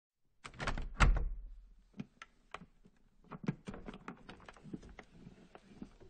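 Something vibrating against wooden furniture, rattling and knocking on the wood: a quick flurry of knocks from about half a second in, the loudest about a second in, then scattered lighter knocks and taps.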